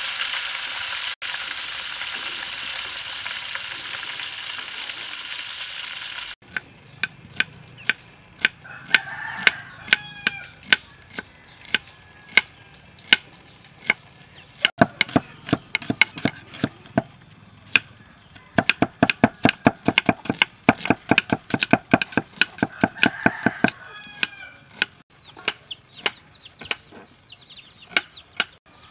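Hot oil sizzling steadily for about six seconds, then a cleaver chopping onion on a wooden chopping block: scattered knocks, then a fast steady run of chops, with chickens calling a few times in the background.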